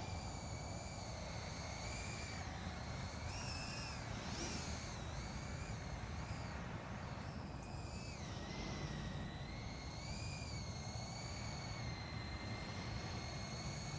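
FPV quadcopter's motors and propellers whining at a distance, the pitch rising and falling as the throttle changes, over a low steady rumble.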